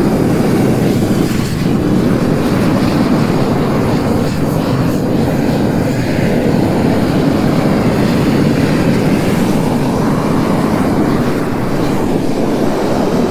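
Small handheld propane roofing torch burning steadily, a loud continuous rush of flame, as it heats torch-down membrane around a vent pipe.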